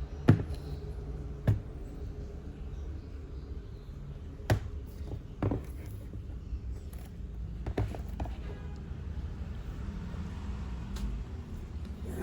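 Sharp clicks and knocks of a laptop being handled and taken apart, about five of them at irregular spacing, over a low steady hum.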